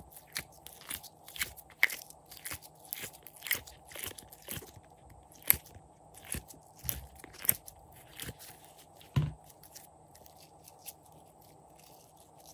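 Slime being pressed out of an ice-cube tray and squeezed in the hand, giving a quick run of crackling pops and squelchy clicks, with a louder pop about five and a half seconds in and another about nine seconds in; the pops thin out near the end as the slime is stretched.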